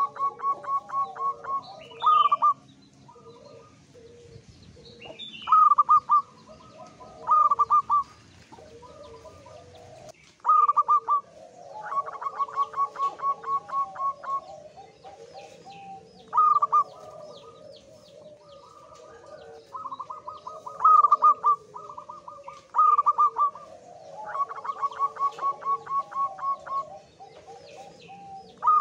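Male zebra dove (perkutut) singing in breeding condition: repeated cooing phrases every two to three seconds. Each phrase is a loud opening note followed by a quick run of short, even staccato notes.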